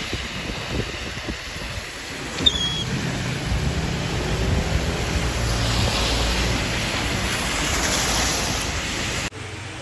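Vehicles driving past on a wet street in typhoon wind and rain, a steady rush of tyres on the wet road with wind noise; a close pass swells louder toward the end, then the sound drops off suddenly.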